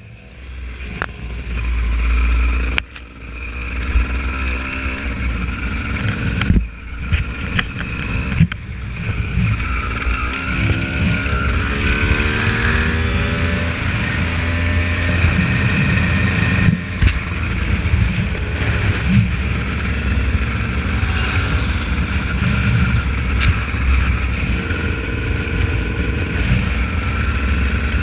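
Honda CR250 two-stroke dirt bike engine running off-road, its revs rising and falling as the throttle is opened and closed, with a few brief knocks.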